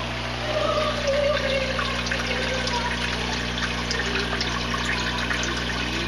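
Water trickling and bubbling steadily in an aquarium, with a steady low hum underneath.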